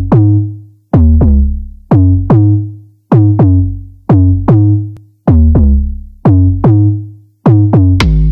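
Background music: an electronic intro beat of punchy synthesized drum hits in pairs about once a second, each hit dropping quickly in pitch and ringing on as a low tone.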